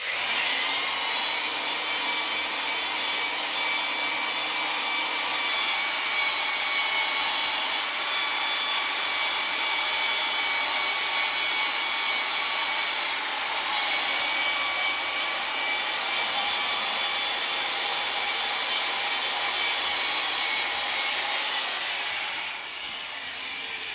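Handheld electric polisher spinning a 50-grit diamond disc against a steel plate to grind its surface flat: a steady motor whine over the hiss of the disc rubbing on the metal. The sound falls away sharply near the end.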